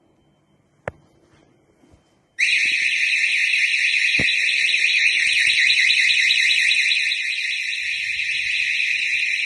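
A sharp click about a second in, then a burglar alarm siren of a Teletek anti-burglar system starts suddenly and sounds loud and continuously with a fast, shrill warble: the alarm has been set off.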